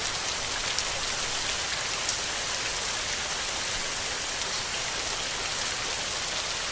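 Steady rain: an even, dense hiss with scattered individual drop hits, two of them a little louder about a second and two seconds in.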